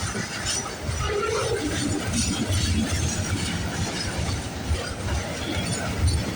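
Freight cars of a passing manifest train rolling by on the rails: a steady rumble of wheels on track with a rattling, clicking upper layer.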